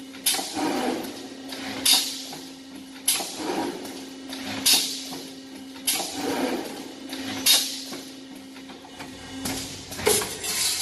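Ladder-type brick force wire mesh welding machine running: a sharp, hissing stroke comes about every second and a half over a steady hum, with two strokes close together near the end.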